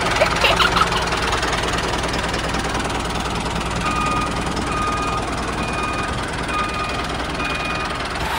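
Miniature tractor engine running steadily as the tractor drives. From about four seconds in, a faint short beep repeats about once a second.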